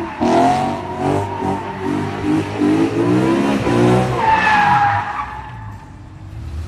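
BMW E92 M3's V8 revving hard while drifting, its note rising and falling in quick steps, with the rear tyres squealing from about four seconds in before the sound fades.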